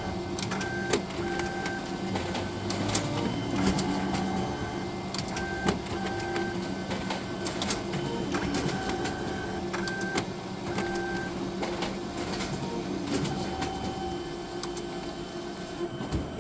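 All-in-one printer running a scan and print job: motor whirs in steady tones that start and stop every second or so, with frequent sharp clicks from the mechanism. The owner is listening for an odd noise in it.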